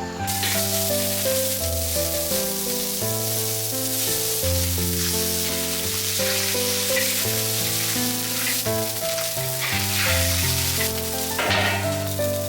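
Food sizzling as it fries in hot oil in a pan, a dense steady hiss that starts suddenly just after the start, over background music of held melodic notes.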